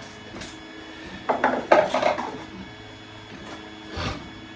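Parts being shifted by hand on a model railway layout's foam base: a scraping, rubbing sound about a second in, lasting about a second, then a dull knock near the end.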